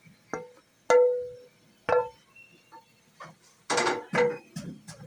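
Metal utensil clinking against a frying pan and ceramic plate while fried koftas are tipped out, a handful of sharp strikes each ringing briefly, then a short burst of scraping and knocking near the end.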